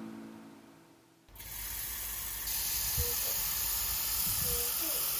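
Guitar music fading out, then a steady hiss starts abruptly about a second in and holds.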